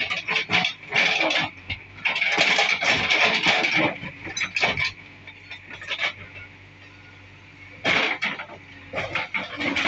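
Bricks and masonry clattering and crashing down as a JCB backhoe loader's bucket breaks apart an old brick wall. The crashes come in bouts, with a quieter spell in the middle. The machine's diesel engine hums steadily underneath.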